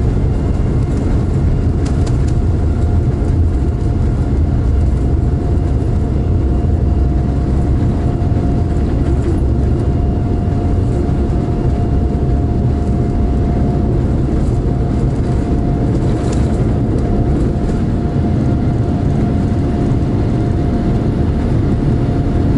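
Boeing 787-9 on its takeoff roll, heard from inside the cabin: its Rolls-Royce Trent 1000 engines at takeoff thrust and the wheels rumbling on the runway. It is a loud, steady, deep rumble with one steady tone held over it.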